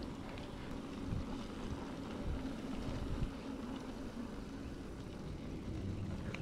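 Steady low rumbling noise of an electric bike being ridden, wind on the microphone and tyres rolling on a track, with a faint steady hum and a few light knocks.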